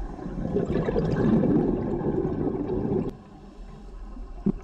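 Underwater bubbling and gurgling, typical of a scuba diver's exhaled bubbles from the regulator, for about three seconds; then quieter underwater water noise with a short knock near the end.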